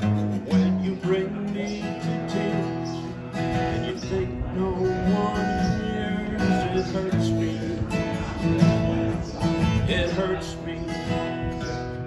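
Steel-string flat-top acoustic guitar played solo, picking and strumming chords in an instrumental passage between sung verses.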